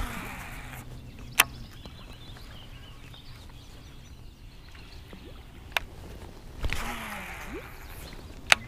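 Daiwa Lexa HD baitcasting reel cast twice: each time a sharp click, a short rushing sound as the line pays out on the cast, then another click as the reel is engaged for the retrieve.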